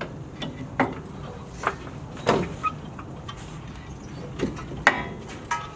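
Irregular metallic clinks and knocks of hand tools and steel suspension parts being handled during a coilover install, about six short hits spread over a few seconds, one near the middle ringing a little longer.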